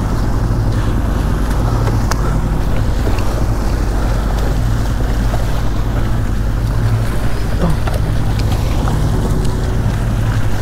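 Twin 150 hp outboard motors running steadily, a low hum under the rush of water in the boat's wake and wind on the microphone.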